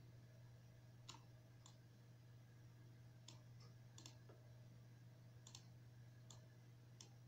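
Computer mouse button clicking: about nine short, sharp clicks at irregular intervals, some in quick pairs, over a faint steady low hum.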